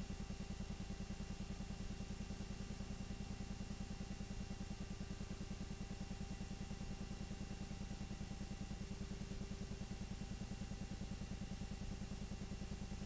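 8mm film projector running: a steady, fast, even mechanical clatter from the film transport, with a constant hum.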